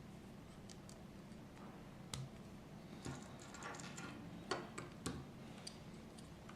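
LEGO plastic bricks clicking and tapping as they are handled and pressed together: faint, scattered light clicks, bunched together in the middle.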